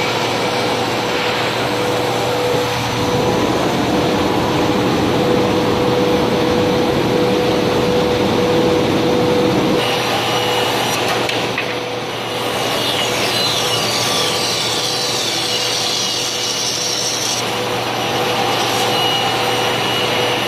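CNC band saw running and cutting through stacked wooden boards: a continuous sawing noise over a steady machine hum.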